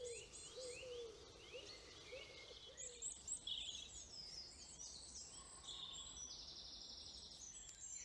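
Several wild birds singing faintly: a scatter of high chirps and short trills, with a run of lower repeated notes in the first two seconds.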